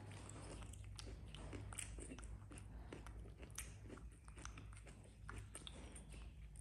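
Faint, close eating sounds: soft chewing and biting of fresh rice-paper spring rolls, with many small irregular mouth clicks and smacks over a low steady hum.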